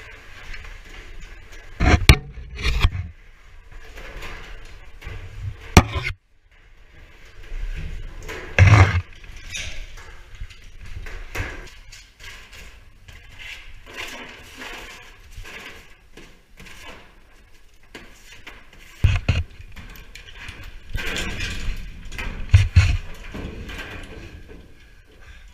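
Irregular knocks, thumps and scraping inside a sheet-metal ventilation duct as a climber on ropes moves among its metal bracing rods. A handful of sharp, loud knocks stand out from a low, steady rumble.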